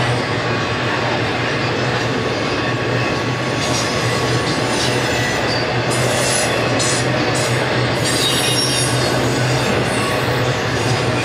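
Freight train of flatcars carrying highway trailers rolling past at speed: a steady rumble of wheels on rail, with high wheel squeal coming and going in the middle.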